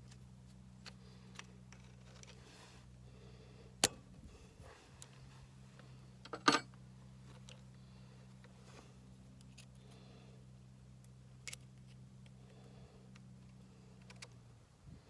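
Scattered clicks and clinks of a wrench and a steel fuel-line fitting being worked loose and handled, with two sharp metallic clinks about 4 and 6.5 seconds in. A steady low hum runs underneath and stops near the end.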